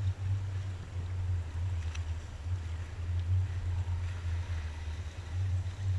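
Wind buffeting the microphone as a low, uneven rumble, over a faint rush of water from the bow wave of a sailing yacht under way.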